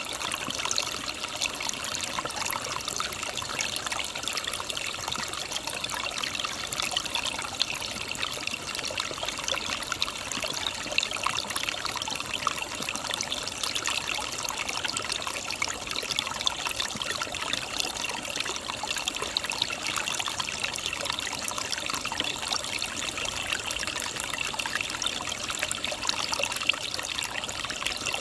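A mountain stream burbling and trickling over rocks, a steady splashing with small irregular plops.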